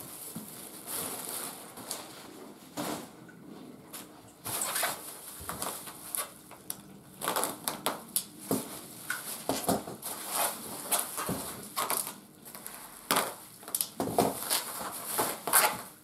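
Kraft honeycomb packing paper and plastic bubble wrap being pulled apart and handled, crinkling and rustling in irregular bursts.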